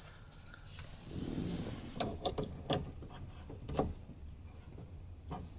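A Bluetooth OBD-II dongle being handled and pushed into the diagnostic port under the dashboard: rustling, then several sharp plastic clicks and knocks.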